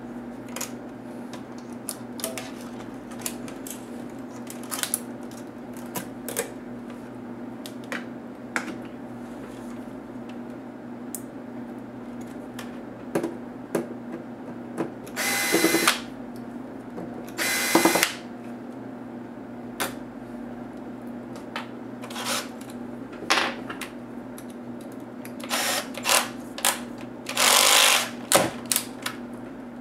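Cordless electric screwdriver whirring in several short bursts of a second or two each, driving out a laptop's display hinge screws. Before that, scattered light clicks and taps of a small hand screwdriver and plastic trim parts.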